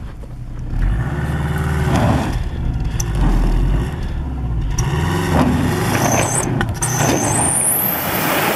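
2005 Subaru Forester XT's turbocharged flat-four revving up and down repeatedly while its tyres spin and churn through deep snow, working the car free from a deep hole. A high whine climbs near the end.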